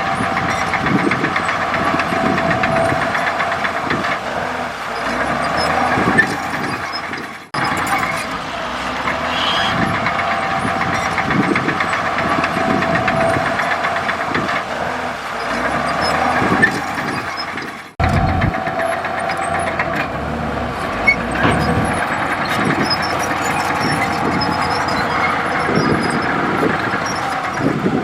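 Komatsu D65E bulldozer running under load, a steady engine noise with irregular clanks and knocks. The sound cuts off abruptly twice, about seven and eighteen seconds in, and resumes at once.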